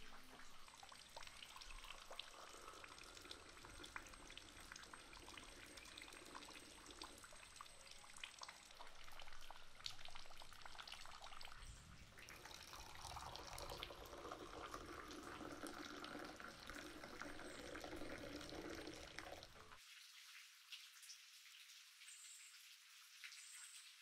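Faint sound of hot dry ginger coffee poured in a thin stream into a terracotta cup, running from about halfway through. It cuts off sharply near the end, leaving near silence.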